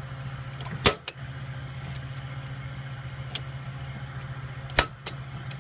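Air conditioner circuit breaker being worked: a sharp snap about a second in, then another near the end followed closely by a lighter click, over a steady low hum. The breaker is throwing right away when reset, which points to a fault in the unit.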